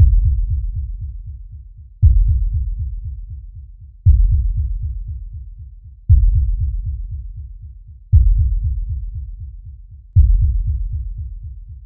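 Deep bass booms, one about every two seconds (six in all), each hitting hard and fading away with a fast flutter: a cinematic sound-design pulse rather than the machine itself.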